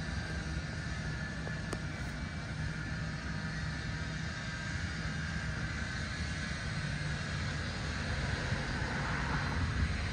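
Steady low outdoor rumble with a haze of background noise, and a single faint click just under two seconds in.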